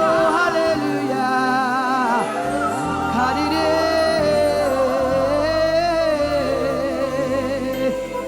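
Gospel worship song: sustained sung notes with vibrato over steady bass and accompaniment.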